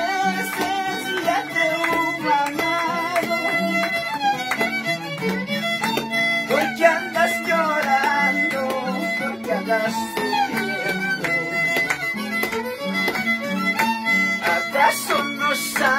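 A huayno played on violin and guitars, the violin carrying the melody over a guitar bass line and strummed chords.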